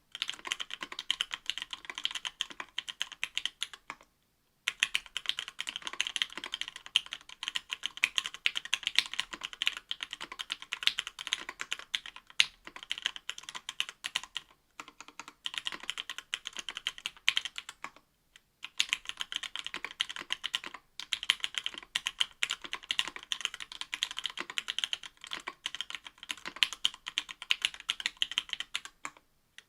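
Steady fast typing on a mechanical keyboard (Octagon V3) with stock Matrix Lab FFFF 62g linear switches, an aluminium plate and GMK keycaps, a rapid run of key clacks. It stops briefly a few times, about four seconds in, around eighteen and twenty-one seconds, and near the end.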